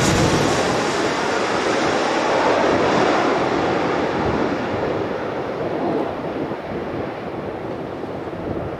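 US Navy C-40A (Boeing 737-700C) turbofan jet on landing approach, the roar of its engines passing overhead and fading as it moves away. The high-pitched part of the noise dies away first, leaving a duller rumble.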